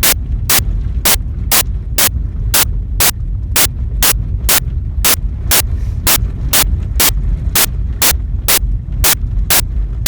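A car's indicator ticking steadily, about three sharp clicks a second, over the low rumble of the car.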